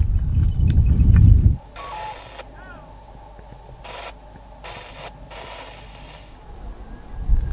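Wind rumbling on the microphone for about a second and a half, then stopping abruptly. It gives way to a hand-held two-way radio sending several short, sharply cut bursts of static and garbled transmission.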